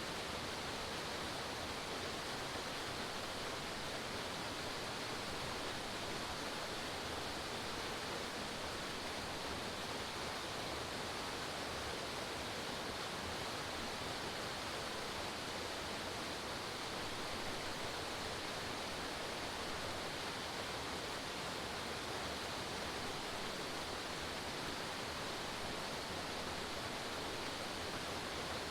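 Small forest waterfall with a steady, even rush of falling water.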